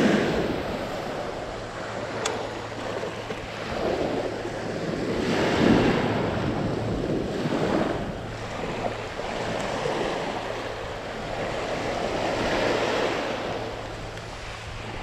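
Small waves breaking and washing up onto a sandy beach at the shoreline, the surf swelling and fading every couple of seconds.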